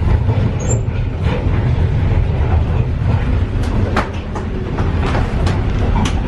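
Indian Pacific passenger train running, heard inside the carriage: a steady low rumble from the rails, with scattered sharp clicks and rattles from about four seconds in.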